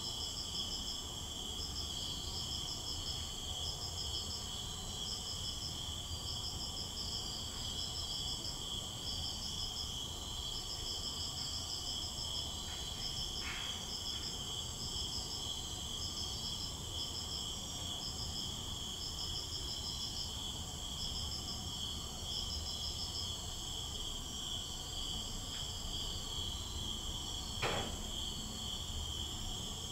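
Insects shrilling and chirping steadily in the night: a continuous high whine with rhythmic pulsed chirps above it. Near the middle comes a faint scuff like a footstep, and near the end a single bang.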